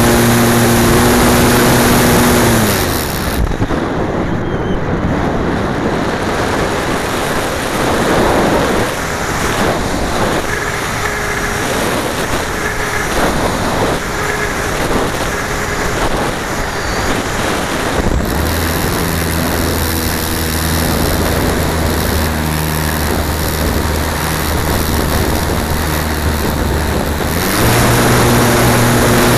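Onboard sound of a radio-controlled model plane's motor and propeller, heard from a camera on the airframe. The motor hums steadily at first and cuts out about three seconds in, leaving a rush of wind over the model as it glides. It comes back at a lower, steady pitch about eighteen seconds in and rises to the higher pitch again near the end.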